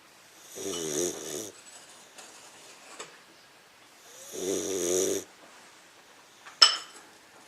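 English Mastiff puppy snoring: two wavering snores, each about a second long and about three and a half seconds apart. A sharp click comes near the end.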